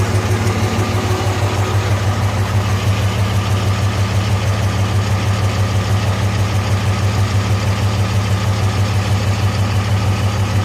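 Dodge Ram 2500's 5.9 Cummins inline-six turbodiesel idling steadily with an even pulsing beat, running with a faulty number 3 injector.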